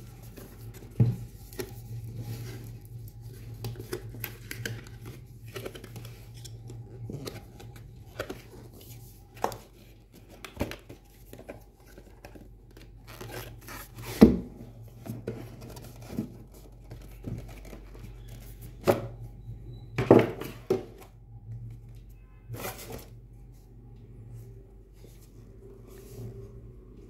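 A cardboard product box being handled and opened: irregular taps, scrapes and rustles of the cardboard, with a few sharper knocks, the loudest about fourteen and twenty seconds in.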